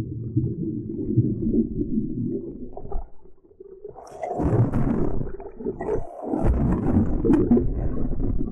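Muffled underwater rumble of water churning around a camera held below the surface. From about four seconds in it turns brighter, with splashing and sloshing as the camera moves up to the waterline.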